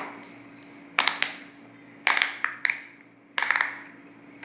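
Silicone pop-it fidget toy bubbles being pressed with the fingers: three quick runs of popping clicks about a second apart.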